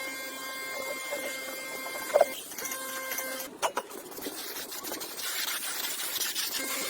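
A small electric motor whining steadily in short runs: it stops a little over two seconds in, runs again for about a second, then stops and comes back near the end. Sharp clicks sound near the middle, and a hiss fills the second half.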